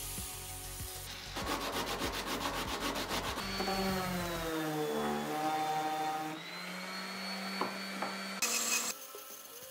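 Electric random orbital sander running on wood with a steady whine and a sanding rasp, its pitch dipping and then recovering midway as it is pressed into the work. A short louder burst comes near the end.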